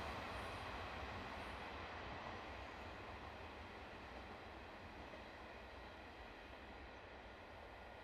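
Diesel express train running away after passing close by. Its running noise fades steadily as it recedes.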